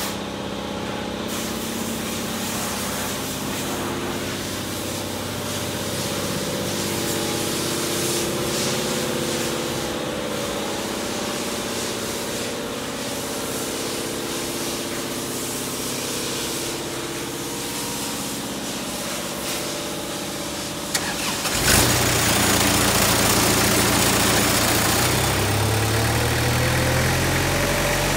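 Gehl 1648 asphalt paver engine running with a steady hum. About three-quarters of the way through there is a click, and the sound changes suddenly to a louder, deeper, rougher run, with a rising whine near the end.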